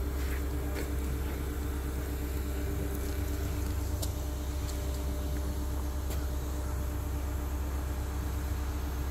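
Tadano ATF 100G-4 mobile crane's diesel engine running steadily while it holds and swings a suspended catamaran, a low, even hum with a few faint ticks.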